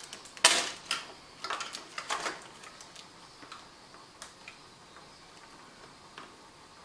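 Plastic clicks and rattles of wiring-harness connectors being unclipped and pulled from the back of a Harley-Davidson Tri Glide's gauge cluster. There is a sharp click about half a second in and a cluster of clicks around two seconds in, then only faint scattered ticks.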